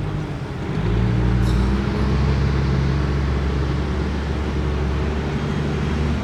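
A motor vehicle's engine running: a low, steady hum that grows louder about a second in and eases off near the end.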